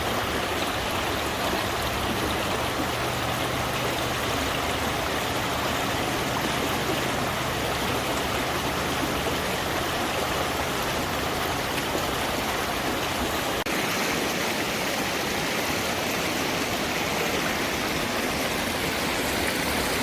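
Rushing stream water: a steady, even rush of water running over rocks.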